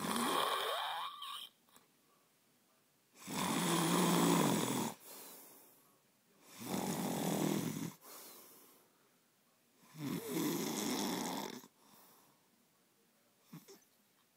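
A man passed out drunk, snoring loudly: four long, heavy snores about three seconds apart, each trailing off into a quieter breath.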